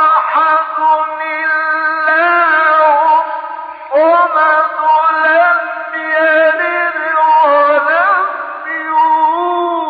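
A solo voice chanting in long, held melodic phrases with ornamented turns, pausing for breath about four seconds in.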